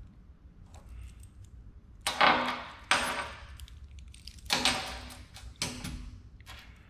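Metal parts and tools clanking as they are handled and set down on a steel workbench: about four sharp clanks with a brief ring, a second or so apart.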